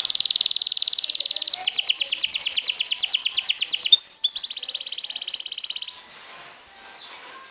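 Canary singing a long, loud trill in several phrases: a very fast trill, then a slower pulsing trill, a quick upward slur about four seconds in, and another fast trill that stops about six seconds in. Faint twittering follows.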